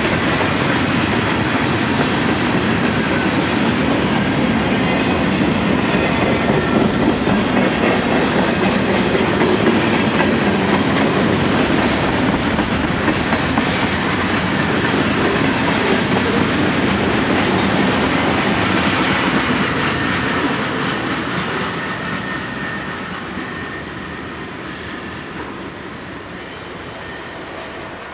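Freight cars of a long train rolling past close by, the steel wheels clattering over the rail joints with some wheel squeal. The sound fades over several seconds near the end as the cars move away.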